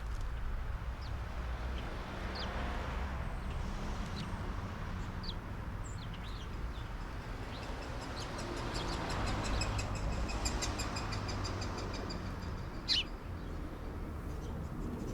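Small songbirds chirping: scattered short, high calls, a fast run of repeated notes in the middle, and one louder call about two seconds before the end, over a steady low background rumble.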